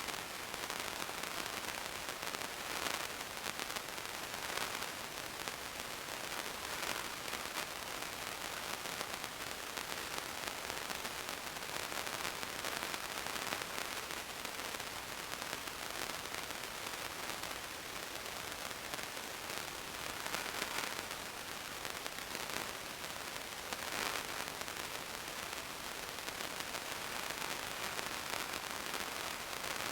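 Steady static-like hiss with fine crackling throughout, brightest in the upper range, and no clear source sound above it.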